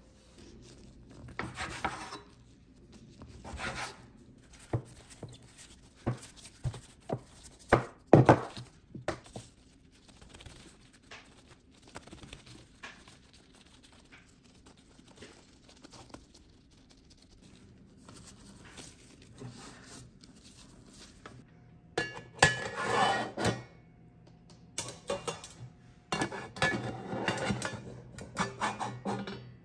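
Gloved hands shaping proofed bread dough on a wooden cutting board: rubbing and pressing, with scattered knocks and taps, the sharpest about eight seconds in, and longer stretches of rubbing later on.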